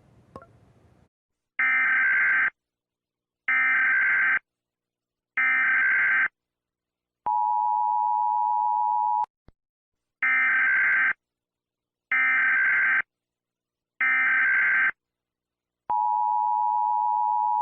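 United States Emergency Alert System alarm: three one-second bursts of SAME digital header data, followed by about two seconds of the steady two-tone attention signal. The pattern then repeats, with the attention tone starting again near the end.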